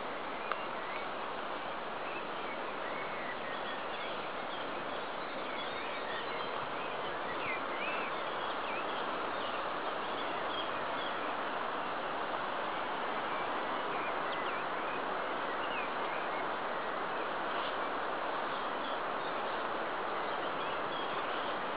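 Outdoor garden ambience: a steady hiss with many small birds chirping faintly through it.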